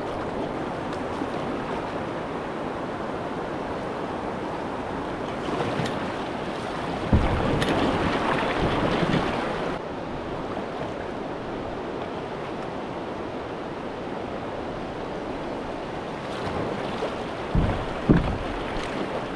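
Fast river current rushing and splashing around a kayak as it is paddled, with wind buffeting the microphone. The water gets louder for a few seconds about seven seconds in, and a couple of low thumps come near the end.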